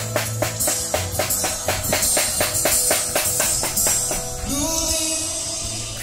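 A song with a singer over a quick, even tambourine-like beat, played through the tricycle sidecar's car-audio amplifiers and speakers. The beat stops about four seconds in while the voice carries on.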